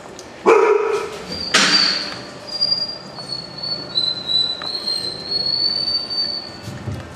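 Four-week-old puppies giving two sharp yelps, then a thin, high-pitched whine that wavers in pitch for about five seconds.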